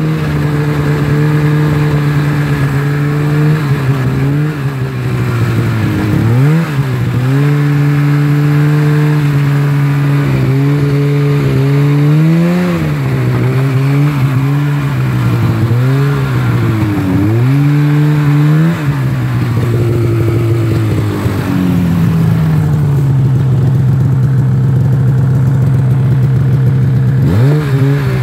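Snowmobile engine running under way, its pitch rising and falling again and again with the throttle through the middle, then holding steadier at a lower pitch, with a quick dip and rise near the end.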